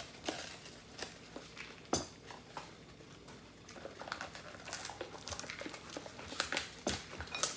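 Scattered light clicks, taps and rustling from handling food and tableware, spaced irregularly.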